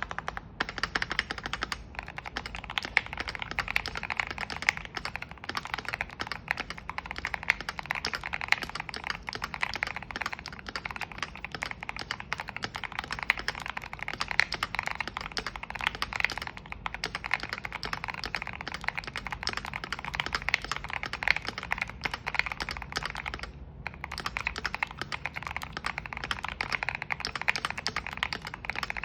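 Continuous fast typing on a Keychron Q1 V2 aluminium mechanical keyboard fitted with JWK Vertex V1 linear switches, after the tape and force-break mods. The keystrokes clack in a dense run, with one brief pause about two-thirds of the way through.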